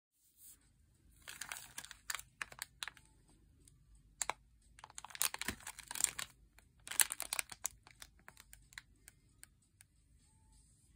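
Clear plastic packaging of a silicone mould crinkling and rustling in gloved hands, in a few short bursts with scattered clicks.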